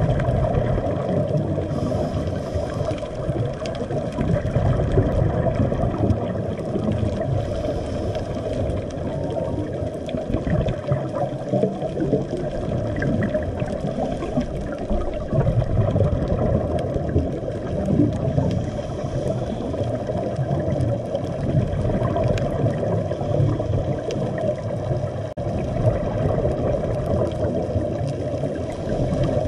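Underwater ambience heard through a camera's waterproof housing: a steady, muffled rush of water with faint, scattered clicks.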